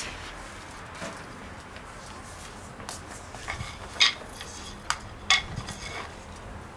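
A handful of short, sharp metallic clinks and knocks from a cast-iron Dutch oven and its lid being handled, the loudest about four seconds in.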